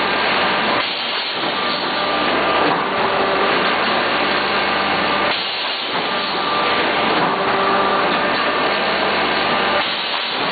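PS foam food container machine running: a steady mechanical hum with an airy hiss, the noise dipping briefly about every four and a half seconds as it cycles.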